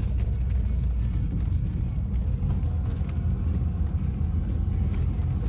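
Off-road 4x4 driving over a rocky dirt track, heard from inside the cab: a steady low rumble of engine and running gear, with a few faint light knocks.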